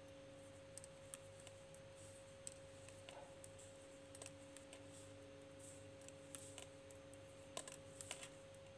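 Faint, irregular clicks of metal knitting needles tapping together as stitches are worked, over a steady low hum.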